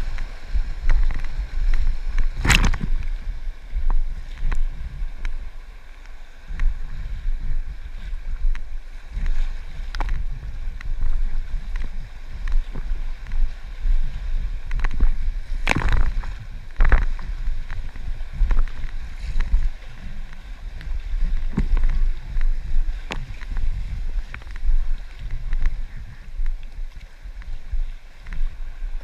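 Moving river water around an inflatable kayak, with wind rumbling on the microphone. A few sharp knocks stand out, the loudest about two and a half seconds in and another about sixteen seconds in.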